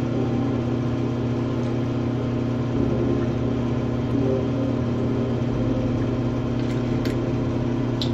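Steady low motor hum with a few even tones, and a couple of faint clicks near the end.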